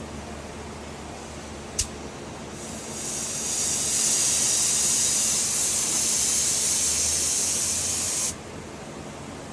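Paint spray gun spraying: a sharp click, then a loud, steady spray hiss that builds up over about a second, holds for about five seconds and cuts off suddenly. Under it runs the steady rush of the paint booth's fans.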